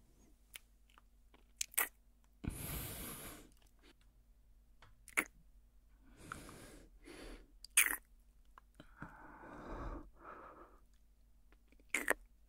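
A man breathing slowly and softly, several separate breaths with the longest about two and a half seconds in, with small wet mouth clicks and lip sounds between them.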